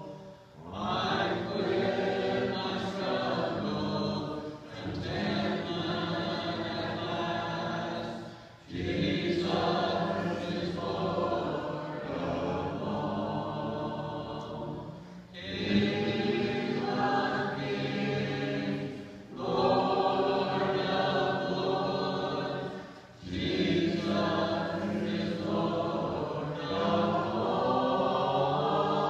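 Congregation singing a hymn a cappella, many voices together with no instruments, in phrases a few seconds long with short pauses between.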